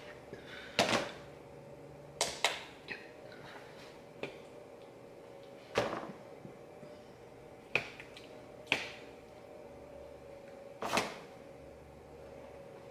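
Kitchen tongs clacking and tapping against plastic meal-prep containers as food is portioned out: about eight separate light clacks, a second or two apart.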